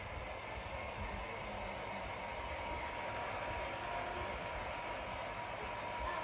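Hot-air blower running steadily, a continuous blowing hiss with a faint motor whine, used to warm a phone's back cover and soften its adhesive.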